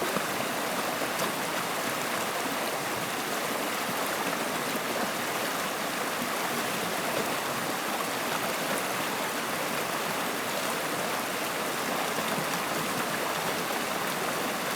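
Flowing water rushing and babbling steadily, an even wash of water noise with no break or change.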